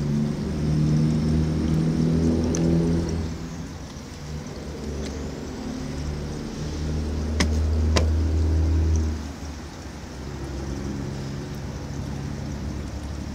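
A motor running with a low hum that swells and fades, loudest over the first few seconds and again about seven to nine seconds in, with two sharp clicks near the middle.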